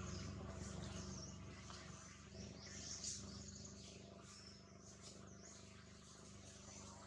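Faint, scattered high chirps from small birds over a low steady outdoor hum.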